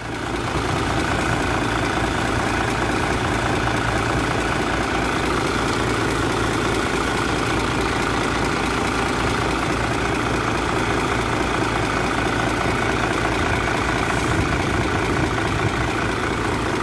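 Isuzu 6HL1 inline-six diesel with an inline injection pump, idling steadily with its dipstick pulled for a blow-by check. No oil spits from the open dipstick tube.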